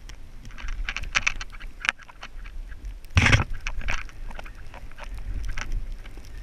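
Wind buffeting a body-worn camera's microphone during a descent on snow, with edges scraping and chattering over the snow in repeated short bursts. There is a louder, longer scrape about three seconds in.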